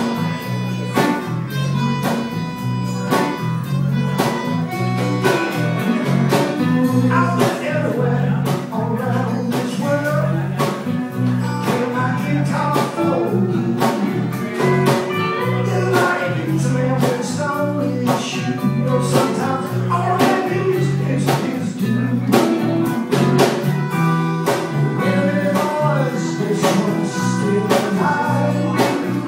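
Live bluegrass band playing a brisk tune: banjo, acoustic guitar and electric bass, with a bouncing bass line and steady rhythmic picking.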